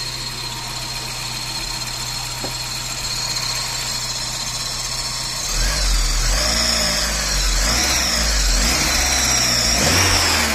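Volkswagen Saveiro pickup's engine idling steadily under the open hood. About five and a half seconds in it gets louder, with a deeper rumble and a wavering high-pitched tone over it. Water has just been put on the accessory belt and pulley, which quiets the belt noise the owner suspects comes from the pulley.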